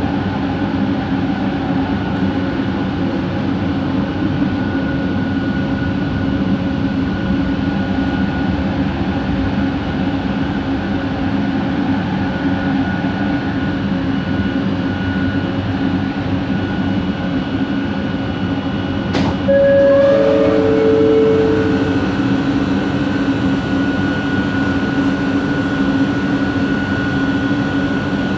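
Bombardier Innovia ART 200 linear-motor train running, heard from inside the car: a steady rumble with a high, steady motor whine over it. About nineteen seconds in there is a click, then a short two-note falling tone.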